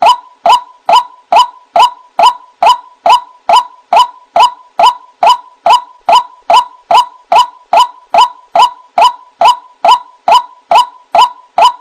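White-breasted waterhen (ruak-ruak) calling: the same short, harsh note repeated evenly about two to three times a second without a break.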